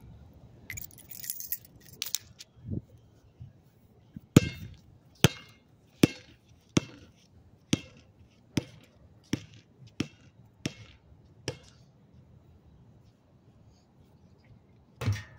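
Basketball dribbled on pavement: about ten sharp bounces, a little under a second apart, that then stop. A louder thump comes near the end.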